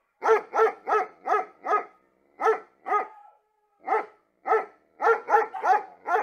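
A dog barking repeatedly: about a dozen short barks in quick runs of two to five, with brief pauses between the runs.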